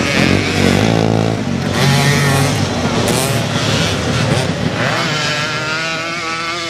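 Motocross dirt bike engines revving, their pitch rising and falling with throttle and gear changes. They settle into a steadier note near the end.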